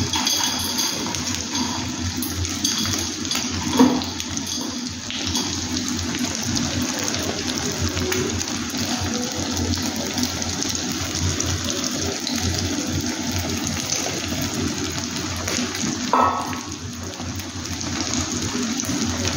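Eggs and tomatoes frying in hot oil in a nonstick pan: a steady sizzle, with a short knock about four seconds in and another near the end.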